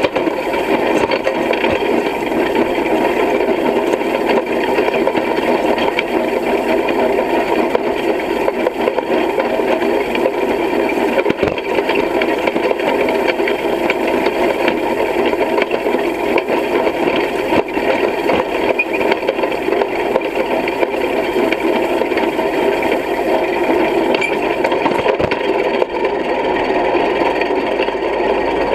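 Towed hay rake rattling steadily as its tine reel turns and the frame jolts over the field, with a tractor engine running under it.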